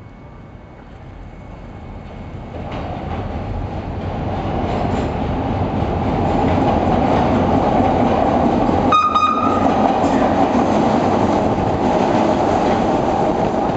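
A CTA Red Line subway train approaches through the tunnel into the station, growing steadily louder over about six seconds, then runs past with a loud, steady rumble and clatter of wheels on rail. A brief horn sounds about nine seconds in.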